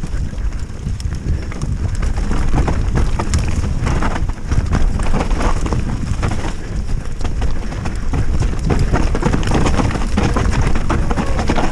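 Specialized Stumpjumper mountain bike descending a rough dirt trail at speed: wind buffets the microphone while the tyres roll over the ground and the bike rattles with frequent sharp knocks.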